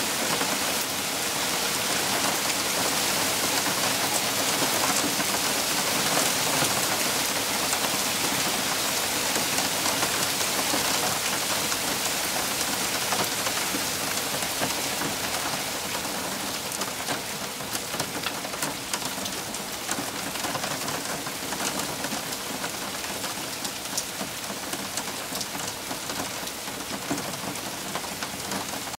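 Hail falling on the ground and leaves: a dense hiss of countless small ticks, easing a little after the halfway point.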